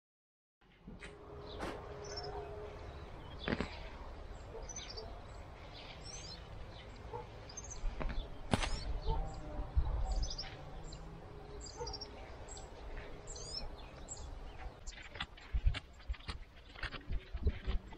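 Birds chirping, with rustling and a few sharp snaps as weeds are pulled up by hand.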